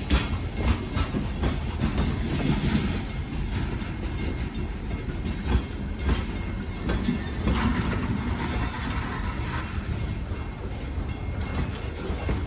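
Freight train cars rolling past: a steady low rumble with irregular clicks and clanks of the wheels over the rail joints.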